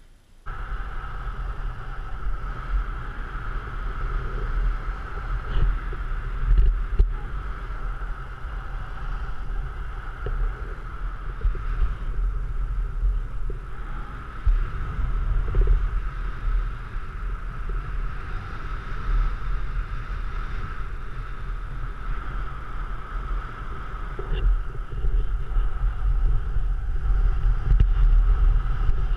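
Airflow buffeting the camera's microphone on a paraglider in flight: a steady low rumble with a rushing, whistling band above it. It starts abruptly about half a second in.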